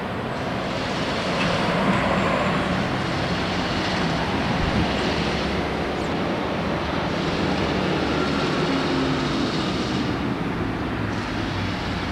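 Steady rumble and drone of vehicle engines, swelling slightly about two seconds in.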